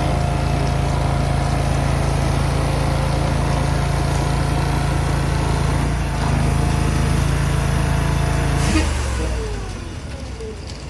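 Small petrol engine on a laser screed running steadily, then stalling about nine seconds in, its pitch falling as it winds down: it has conked out.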